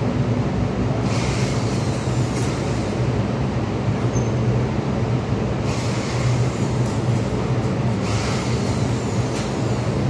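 Steady low machinery hum over a constant noise floor, with brief bursts of hiss about a second in, around six seconds and around eight seconds.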